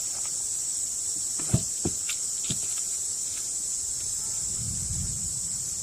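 A steady, high-pitched insect drone. A few light knocks sound about a second and a half to two and a half seconds in, and a soft low rumble follows near the end.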